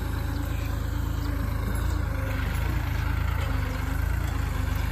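Diesel tractor engine running steadily while it pulls a tillage implement through the soil.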